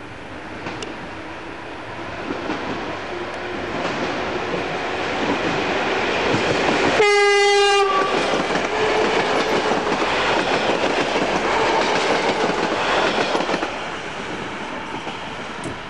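Yellow NS electric multiple-unit train approaching and running past along the platform, its running and wheel noise building up and then falling away sharply near the end. About seven seconds in it sounds one short horn blast of under a second.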